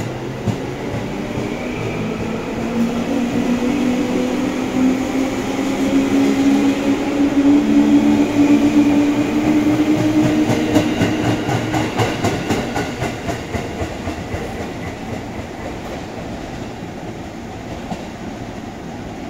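JR East 211 series electric train pulling out and accelerating past: a low motor hum rising in pitch over the first twelve seconds or so, with a rhythmic clatter of wheels over rail joints as the cars go by. It is loudest in the middle and fades as the train draws away.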